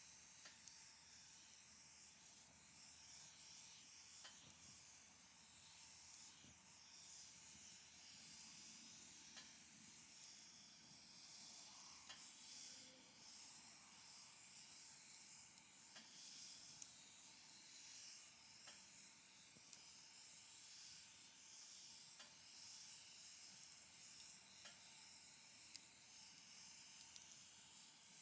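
Firewood burning in a folding fire pit: a faint, steady hiss with scattered soft crackles and a few sharper pops.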